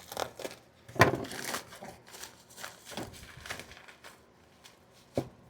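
Cardboard shipping box being opened and its contents handled: a run of rustles and knocks, the loudest about a second in and a sharp one near the end.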